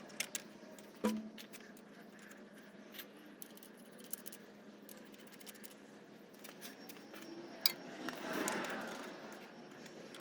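Hands working on truck battery cables and hardware: scattered small clicks and knocks, with a louder knock about a second in and a sharp click followed by a brief rasping rush near the end.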